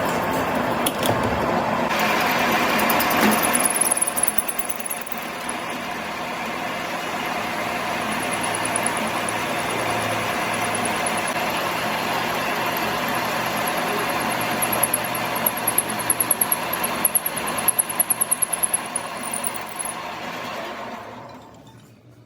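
A machine running steadily with a faint high whine; a run of sharp clicks or knocks comes through in the last several seconds before the sound dies away near the end.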